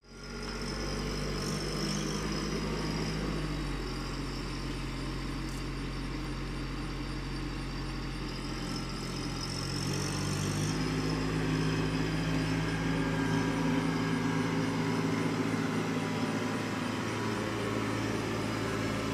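TYM T264 subcompact tractor's engine running as it drives with a load of brush in the front grapple, the engine note changing a couple of times.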